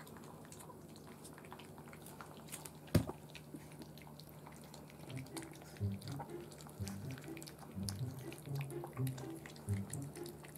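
A French bulldog–Boston terrier puppy eating dry kibble from a bowl: irregular crunching and chewing with clicks of kibble against the bowl, coming thickly from about five seconds in, and one sharp knock about three seconds in.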